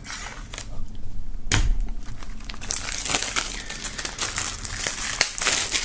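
Plastic shrink-wrap film being slit and peeled off a CD jewel case: a sharp tear about a second and a half in, then a busy run of crinkling and crackling as the film comes away.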